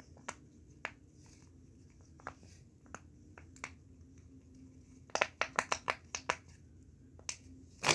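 Silicone Pop-It bubbles being pressed, each giving a short pop: a few scattered pops, then a quick run of about nine pops about five seconds in.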